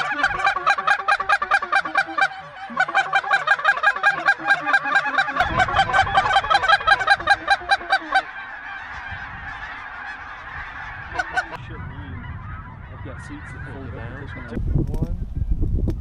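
A huge flock of snow geese calling overhead, a dense clamour of rapid overlapping calls that thins out after about eight seconds and dies away by about twelve. Wind rumbles on the microphone from about five seconds in and gusts louder near the end.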